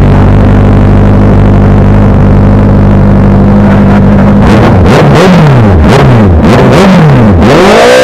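Honda CB650's inline-four engine with an aftermarket Villain exhaust muffler, idling steadily, then revved in quick repeated throttle blips from about halfway in, the pitch rising and falling with each blip.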